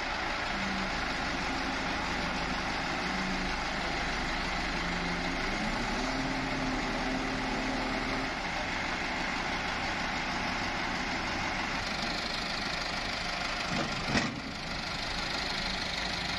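Diesel engines of a farm tractor and a wheeled excavator running steadily near idle, with one sharp clunk near the end.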